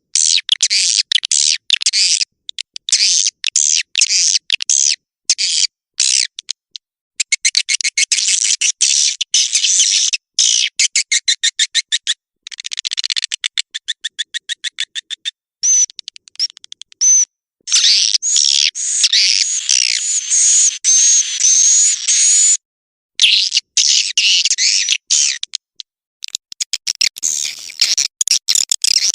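Swiftlet calls played as a lure track for swiftlet houses: fast clicking trills and buzzy twittering in bursts, broken by sudden silent gaps. Near the end the sound changes to a fuller-sounding chatter.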